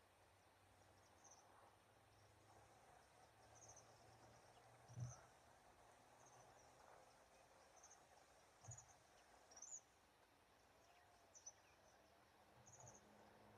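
Faint insect chirping: short, pulsed high chirps about once a second over near silence. A soft low thump about five seconds in and another near nine seconds.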